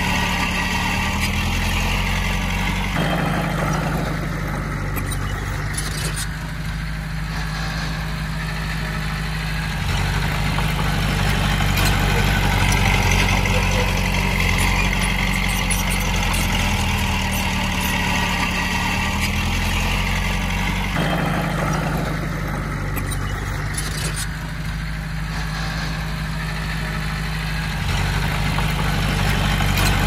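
Komatsu D20P bulldozer's diesel engine running steadily, its note and loudness shifting every several seconds as the load changes while it works.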